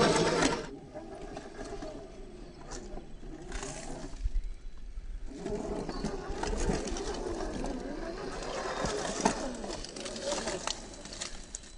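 RC rock crawler's 550-size 21-turn electric motor and drivetrain whining, the pitch rising and falling with the throttle as it crawls over rocks, with a short lull about four seconds in and one sharp knock late on.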